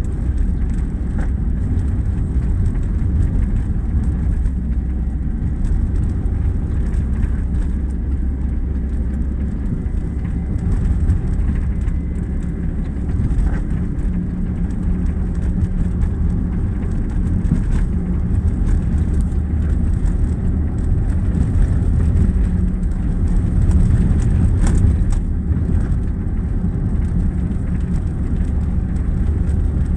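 An engine running steadily with a low rumble, with a few faint clicks over it.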